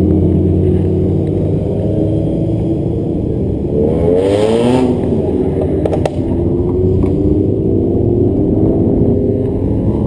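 Car engines running as cars drive by, with one engine revving up in a rising sweep about four seconds in and another rev starting near the end.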